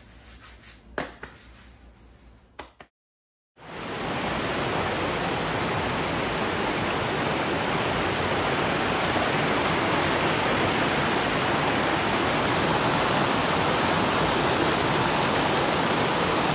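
A few faint knocks, a moment of silence, then the steady rush of a fast-flowing stream over riffles starting about three and a half seconds in.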